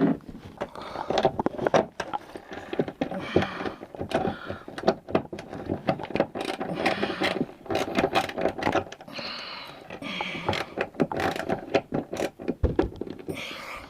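Cordless drill/driver driving the last bolt of a kayak gear track, its motor running in several short stretches among clicks and rattles of the bolt, washer and nut.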